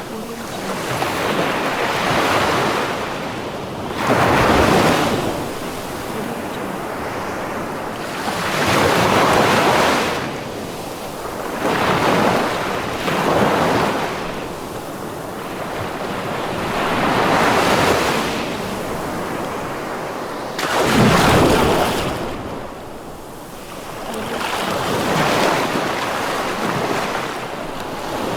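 Rough sea surf: waves breaking and washing in one after another, each swell rising and falling every few seconds, with one heavier crash about two-thirds of the way through.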